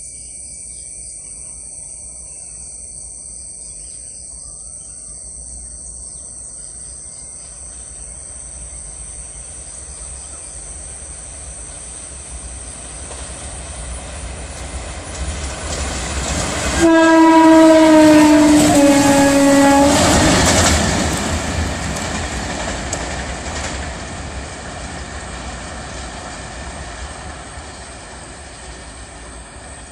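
An Indian Railways light locomotive, running without a train, approaches with its rumble growing louder. About 17 seconds in it sounds its horn for about three seconds, the note stepping down slightly partway. It then passes close by and its rumble fades away.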